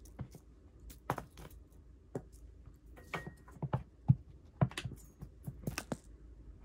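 A cat pouncing and batting at a toy dangling on a string: irregular soft taps, thumps and rustles of paws and body on a towel over carpet, the loudest thump about four seconds in.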